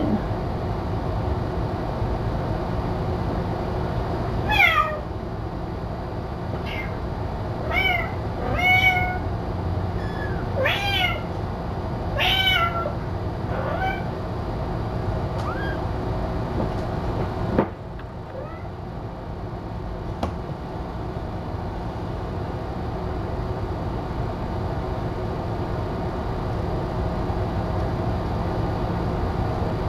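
Kitten meowing repeatedly: about eight short, high calls that each fall in pitch, over a steady low hum. A single sharp click comes a little past halfway.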